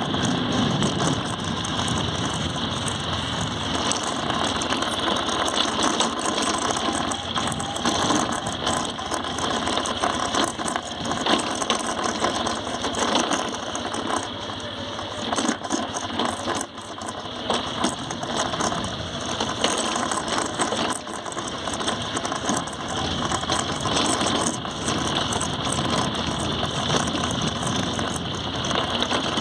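Honda Livo 110 cc single-cylinder motorcycle ridden slowly down a rough dirt track: a continuous mechanical clatter of rapid ticks and rattles from the bike over the bumps, with the engine running low underneath.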